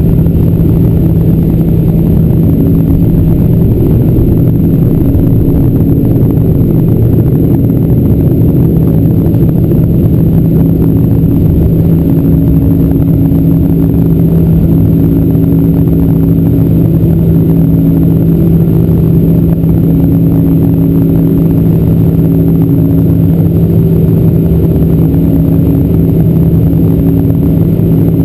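Cabin noise of a Boeing 747-400's General Electric CF6-80C2 turbofans at takeoff thrust, heard from a window seat over the wing during liftoff and initial climb. It is a loud, steady rumble with a low, even drone.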